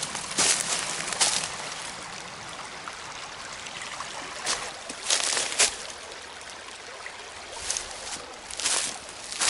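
Small brook running with a steady trickling rush. Several short footstep-like sounds come about half a second in, twice around five seconds in, and again near the end.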